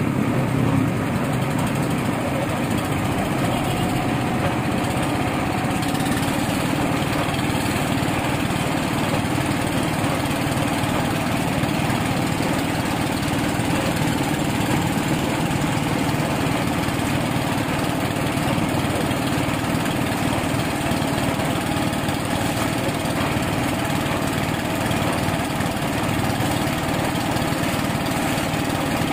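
Small engine of borehole well-drilling equipment running steadily at an even speed.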